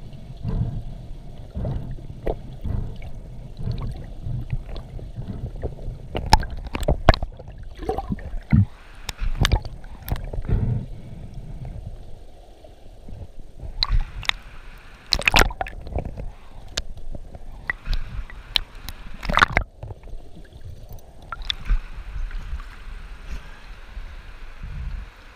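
Water sloshing and gurgling around the camera, with a low rumble and irregular knocks and clicks as a spearfisher moves through a river.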